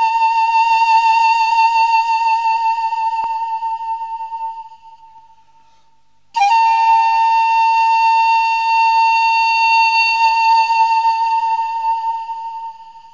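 Background music: a solo flute holds one long note with a slight vibrato that fades away about five seconds in. A second long note on the same pitch starts about six seconds in and fades out near the end.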